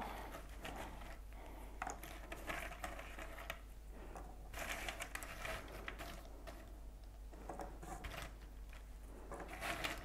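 Jigsaw puzzle pieces rustling and clicking faintly as hands sift through them in a puzzle tray, in small irregular bursts.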